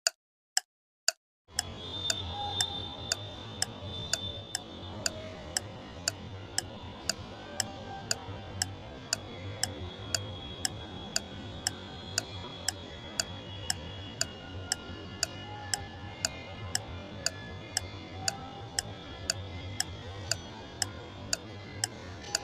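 Clock-like ticking, sharp and very regular at about two ticks a second, most likely a clock-tick sound effect laid over the footage. About a second and a half in, a faint steady background comes in under it.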